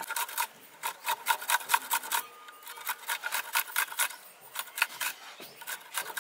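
Fresh ginger being grated on the fine side of a stainless steel box grater: quick scraping strokes, several a second, with a short pause about two seconds in and another near the end.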